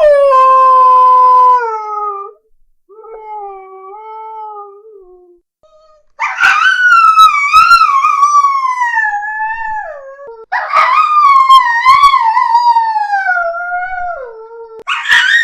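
Dog howling: a loud held howl at the start, a few fainter shorter ones, then two long howls that waver and slide down in pitch, with another beginning near the end.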